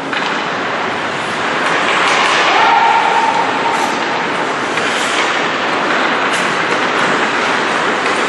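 Ice hockey play on an indoor rink: skate blades scraping and carving the ice in a steady rumbling wash, with occasional sharp clacks of sticks and puck. A short held tone rises above it about three seconds in.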